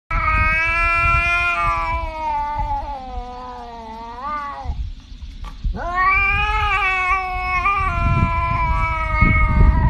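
Domestic cat yowling in two long, drawn-out calls: the first lasts about four and a half seconds and rises at its end, and the second starts about a second later and keeps going. A low rumble runs underneath.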